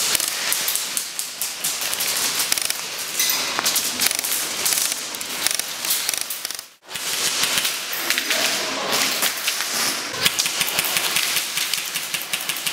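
Airsoft guns firing in rapid rattling bursts, with a dense run of sharp clicks and impacts. The sound cuts out abruptly for a moment about halfway through, then resumes.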